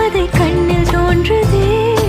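Background music: a sung melody in a Bollywood style over a steady beat.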